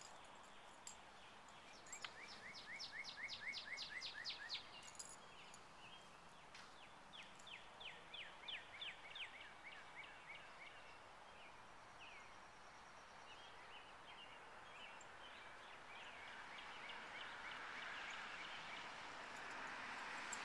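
A songbird singing quick trills of rapidly repeated short notes, two clear runs a few seconds apart and a fainter one later, over a quiet outdoor background. A soft rushing noise builds toward the end.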